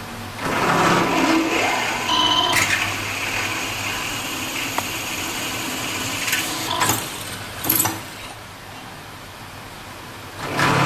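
Bench drill press running, its twist drill cutting into a metal plate held in a drill vise. The sound steps up about half a second in, eases off around eight seconds in, and rises again near the end.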